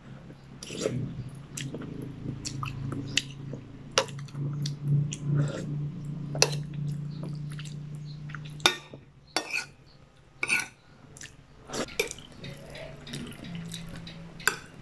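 A metal spoon clinking now and then against a ceramic plate and soup bowl during a meal, with soft chewing and sipping of broth between the clinks. A low steady hum runs under the first half and stops about eight and a half seconds in.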